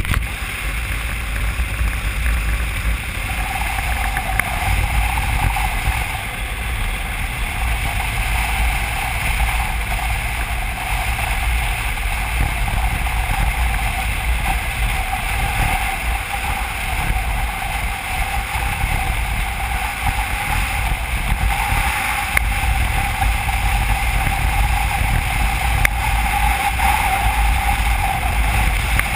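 A motorcycle running at steady cruising speed, heavy wind rushing over a bike-mounted camera's microphone, with a steady hum from the engine and tyres beneath it.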